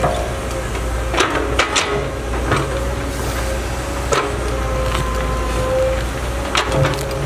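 Caterpillar 312C hydraulic excavator's diesel engine running under load with a steady whine. Sharp knocks and clanks come several times as the bucket digs into and lifts rooty soil.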